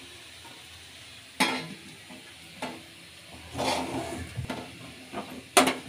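Metal spatula scraping and clinking against a metal kadai as spiced fried potato is scooped out onto a steel plate: several sharp clinks and scrapes over a faint hiss, the loudest near the end.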